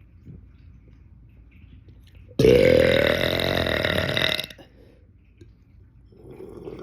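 A man's single long, loud burp, lasting about two seconds, starting a couple of seconds in and cutting off sharply.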